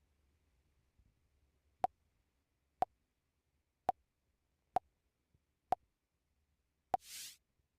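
Six short electronic beeping clicks, evenly spaced about a second apart, then a brief high hiss near the end.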